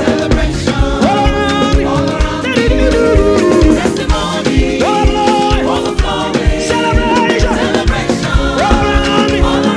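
Live gospel music with singing over a band, with a steady beat.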